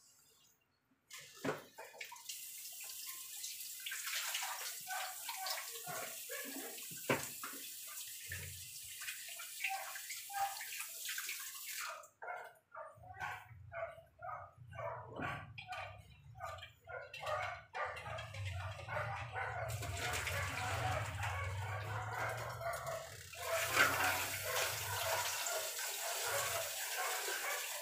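Arroz valenciana bubbling under a glass lid as it simmers: a quick run of short bubbling blips over a steady hiss, with a low hum coming in about halfway through and stopping near the end.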